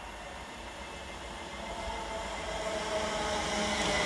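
London Northwestern Railway Class 350 electric multiple unit approaching at speed, growing steadily louder as wheel-on-rail rumble and hiss build. A whine of several steady tones joins in about halfway.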